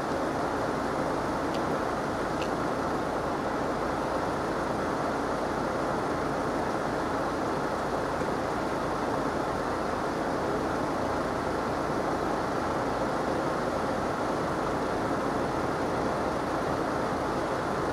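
Steady rushing background noise with no change in level, with two faint ticks about two seconds in.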